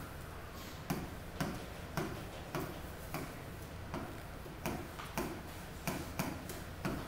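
A stylus tapping on the glass of a touchscreen display as words are handwritten on it: a dozen or so light taps at uneven spacing, about two a second, over a steady low hum.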